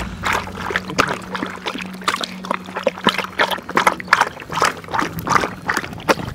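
A dog lapping water from a steel bowl, quick splashing laps about three a second.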